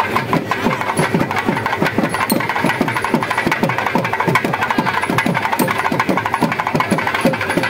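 Drums beaten in a fast, steady rhythm, the deep strokes dropping in pitch several times a second.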